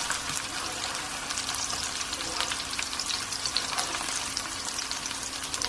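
Sliced onions and red chillies frying in hot oil in a pan, sizzling steadily with many small crackles.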